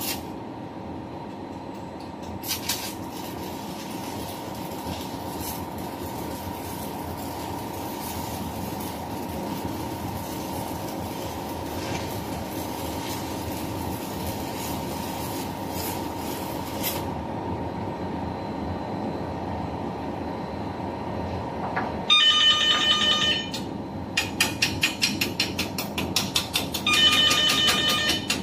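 Stick arc welding on a steel barbecue ring, crackling and hissing from about two seconds in until about seventeen seconds, over a steady low machinery hum. From about twenty-two seconds a hammer raps the welded steel ring in quick runs of strikes that ring with a metallic tone, chipping off the slag.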